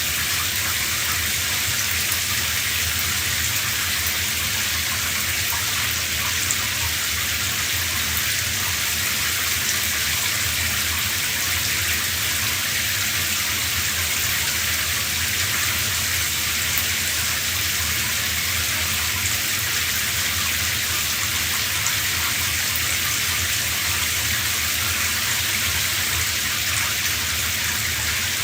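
Running shower: a steady spray of water pattering down, an even hiss with no breaks.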